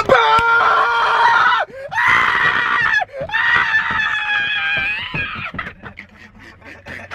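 A person screaming: three long, high, held screams, then quieter with a few scattered clicks near the end.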